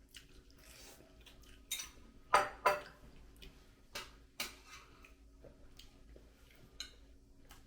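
Utensils clinking and clattering against noodle bowls while eating: about six short, sharp clinks spread over several seconds, the loudest two close together about halfway through.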